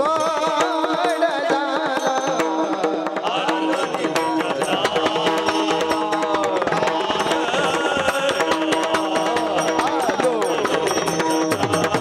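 Devotional kirtan music: a singer's wavering, ornamented melody over a held steady note, with drum accompaniment and rapid, continuous percussion strokes.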